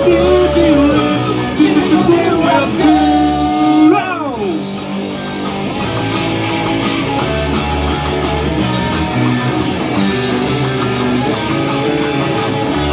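Rock music led by guitar, with a bass line underneath. About four seconds in, a held melody note slides steeply down in pitch, and then the chords carry on steadily.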